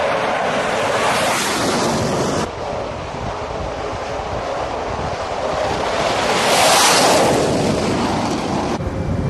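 Jet engine roar of a Dassault Rafale M at full power on a carrier's steam catapult. It breaks off about two and a half seconds in, giving way to a steady rush of jet noise and wind across the flight deck that swells loudest around seven seconds in.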